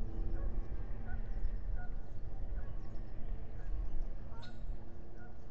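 Wind rumbling on an outdoor microphone, with faint, scattered short bird chirps over it.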